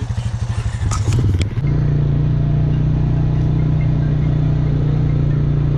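Vehicle engine running while driving, with a few clattering knocks about a second in; after that the engine runs steadily.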